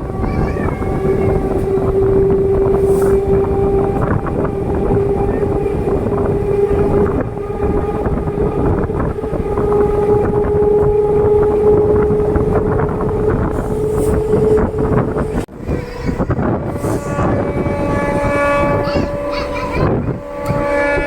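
DEMU (diesel-electric multiple unit) train running along the track: a steady rumble and rush of wind, with a whine that slowly rises in pitch. About three-quarters of the way through it briefly dips, then a new set of higher steady tones sounds over the running noise.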